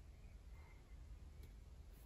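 Near silence: room tone, with one faint click about one and a half seconds in.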